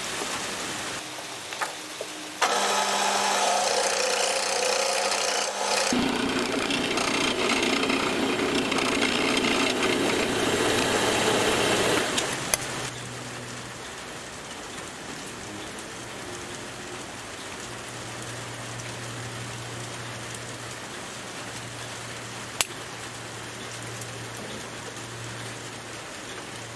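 Metal lathe cutting a machined pin for about ten seconds, with a rasping, scraping noise and a steady tone that shifts partway through. Then the cut stops and the lathe runs on with a steady low hum, with a sharp click about halfway through that stretch.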